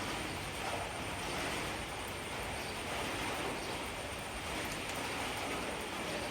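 Heavy, torrential rain falling steadily as an even, unbroken hiss.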